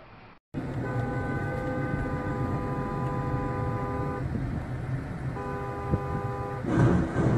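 A car horn held for about three seconds and then sounded again for about a second, over the road noise of a moving car heard from inside the cabin. Near the end there is a louder rush of noise.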